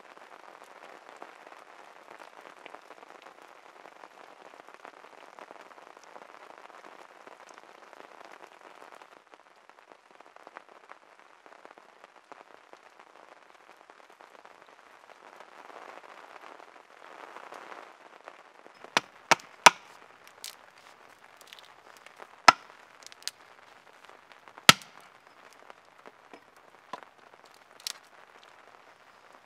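Small kindling fire of dry sticks catching and burning with a steady crackling hiss. From about two-thirds through come a few sharp, loud pops and snaps of burning twigs.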